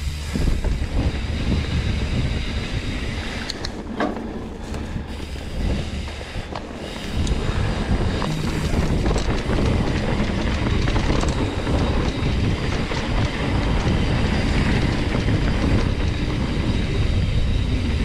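Trek Roscoe 9 hardtail mountain bike riding fast over rough dirt singletrack: tyre rumble and frame and drivetrain rattle, with wind rushing over the microphone and a few sharp clicks about four seconds in. The rumble grows louder and rougher about seven seconds in.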